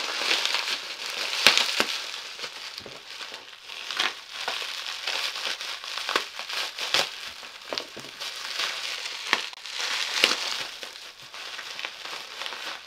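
Plastic packaging crinkling and crackling as it is pulled open and unwrapped by hand, with sharp crackles every second or so.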